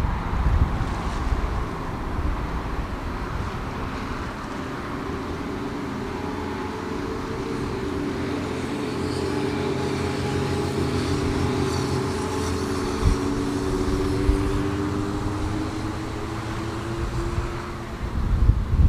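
A steady engine drone over a low rumble, growing louder toward the middle and fading near the end, with wind buffeting the microphone at the start and end.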